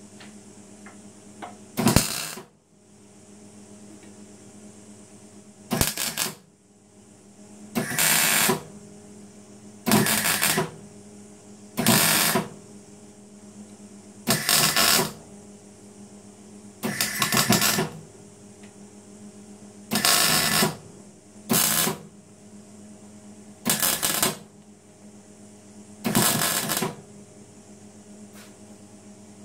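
MIG welder spot-welding steel mounting brackets onto a motorcycle fuel tank: about eleven short bursts of arc noise, each under a second, a couple of seconds apart, over a steady hum.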